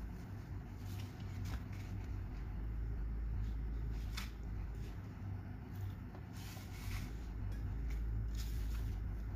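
Hands patting and rubbing dry flour coating onto tilapia pieces in a steel basin, giving soft rustles and pats every second or so. A steady low hum runs underneath.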